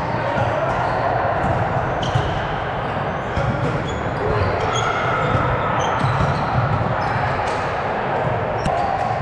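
Echoing gym ambience during indoor volleyball play: scattered sharp thumps of balls being struck and bouncing, and short high squeaks of shoes on the court, over a steady murmur of voices.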